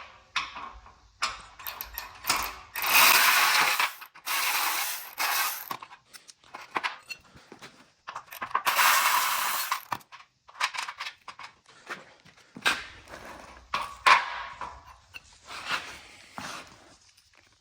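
Hand ratchet clicking in bursts of a second or so as the side-skirt bracket bolts are worked loose, between sharp clinks of metal hardware.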